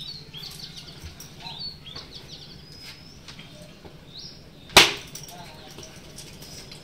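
Small birds chirping repeatedly in short falling calls, with one loud sharp slap about five seconds in.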